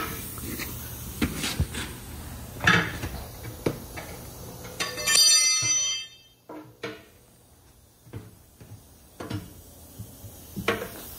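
Metal clanks and knocks of a trailer wheel being worked on in a tire shop, with a compressed-air tool whining for about a second about five seconds in.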